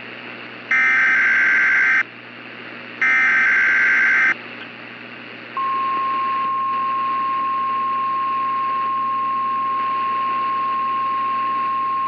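NOAA Weather Radio Emergency Alert System broadcast: two harsh bursts of the digital SAME header, each about a second long and a second apart, then a single steady warning alarm tone that starts about five and a half seconds in, all over radio hiss. The sequence signals that an alert, here a severe thunderstorm watch, is about to be read.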